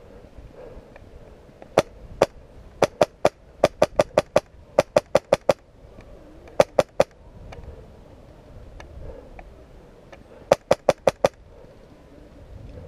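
Airsoft rifle firing: sharp cracks in quick strings of several shots a second, with short pauses between the strings.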